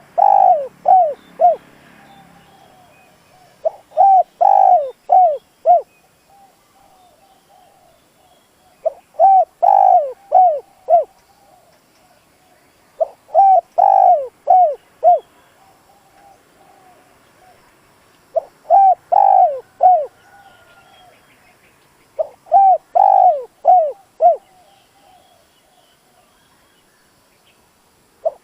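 Spotted dove cooing its song: about six phrases of five or six quick coos each, repeating every four to five seconds. It is the advertising song of a decoy male of the kind used to provoke wild doves, with faint chirps from other birds between phrases.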